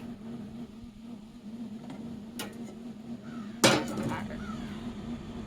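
A sharp metallic clank about three and a half seconds in, with a lighter click a second before it, over a steady low hum. These are knocks of metal while chicken wings are being laid out on a smoker grate.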